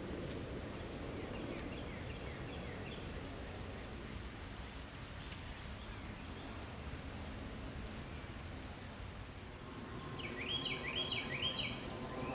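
Birds singing: a short, high chirp repeats about every three-quarters of a second, and near the end a louder phrase of three quick rising notes. A low rumble runs underneath.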